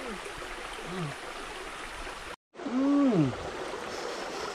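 Steady rush of a small forest stream, with a few short, falling murmured vocal sounds from a person. The sound cuts out completely for a moment about halfway through.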